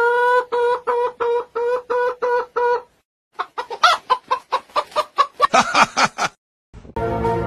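Hen-like clucking: a string of short calls on one steady pitch, about three a second, then, after a brief pause, a faster, higher, ragged run of calls. Music comes in near the end.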